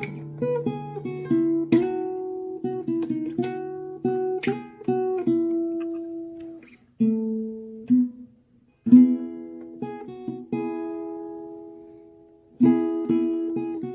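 Background music of plucked string notes and chords, likely acoustic guitar, each note ringing and fading. The music drops out briefly a little past halfway, then picks up again.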